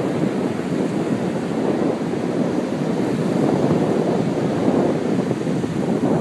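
Steady rushing noise of sea wind buffeting the microphone, mixed with surf breaking on the beach.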